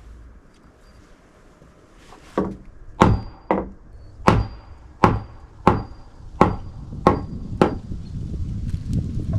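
Wooden board, wedged in tight, being struck loose: about ten sharp blows on wood, roughly one every two-thirds of a second, starting a couple of seconds in.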